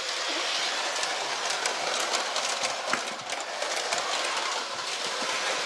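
Large electric toy train running on track powered through the rails, a steady motor whir with scattered clicks of the wheels over the track.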